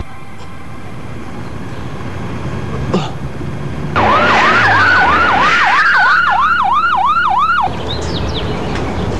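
Emergency-vehicle siren in a fast yelp, its pitch sweeping up and down about three times a second for roughly three and a half seconds from about four seconds in, then cutting off suddenly. A single sharp knock comes a second before it, over a steady low background hum.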